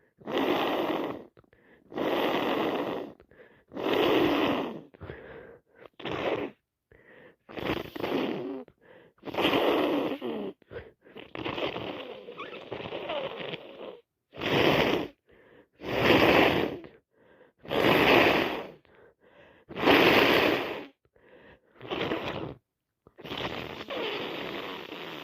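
A person with a heavily congested head cold blowing her nose hard into a handkerchief, again and again, about a dozen forceful blows roughly every two seconds.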